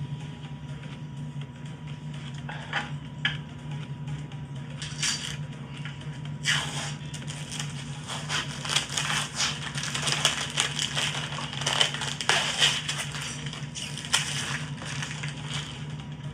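Plastic 2-liter soda bottle crinkling and crackling as it is handled and squeezed, with a dense run of sharp crackles from about six seconds in, over a steady low hum.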